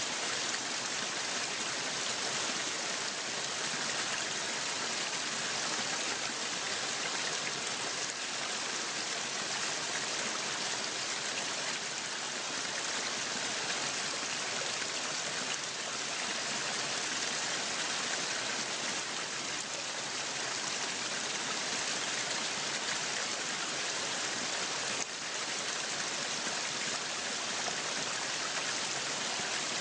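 Waterfall: a steady rush of falling water, a constant hiss that is brightest in the upper range.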